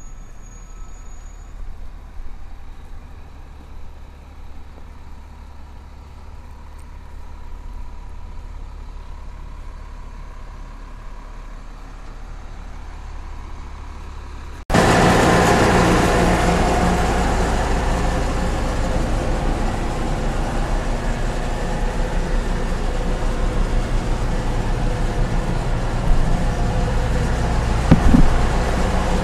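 Schwarze A7 Tornado street sweeper truck running: a steady low engine idle, then a sudden jump about halfway to a much louder steady rushing noise with engine rumble underneath.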